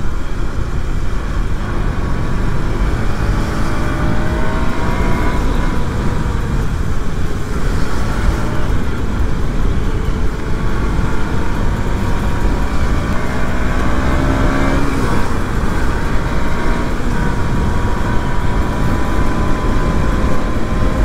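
KTM Duke 200 single-cylinder engine running on the move, its pitch climbing and dropping several times as the revs rise and fall through the gears. Steady wind and road noise lies under it.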